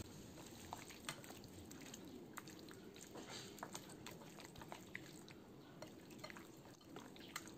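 Faint wet squelching with scattered soft clicks from a hand kneading quail pieces in a thick spice-and-yoghurt marinade with cornflour.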